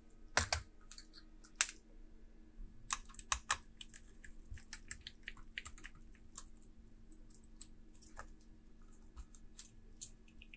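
Irregular light clicks and taps of a precision screwdriver on screws and laptop chassis parts as the machine is taken apart, a few louder clicks in the first few seconds.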